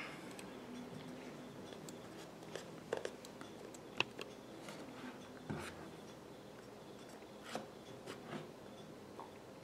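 Small knife blade slitting the seal on the flap of a cardboard product box: faint scratching with a few sharp clicks and taps of the packaging, the loudest about four seconds in.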